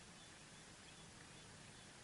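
Near silence: a steady faint hiss with a few faint, short, high bird chirps.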